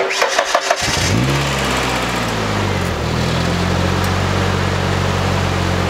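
Ford Ranger engine cranking briefly on a portable jump starter because its battery is dead. It catches about a second in, flares up, then settles into a steady idle.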